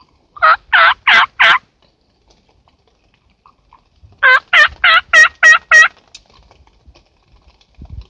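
Hen turkey yelps blown close by on a hunter's turkey call: a run of four yelps, then after a pause of about two and a half seconds a run of seven. Loud and close, made to call the gobblers in.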